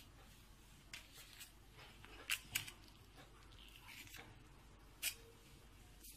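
Faint handling noises of pastry dough being cut and shaped by hand: a few light clicks and taps, two sharp ones close together a little past the two-second mark and another about five seconds in, over low room tone.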